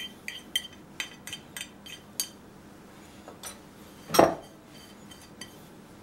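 Fingers scraping grated lemon zest off a plastic plate into a plastic mixing bowl: a quick run of light clicks, about four a second, then one louder knock about four seconds in.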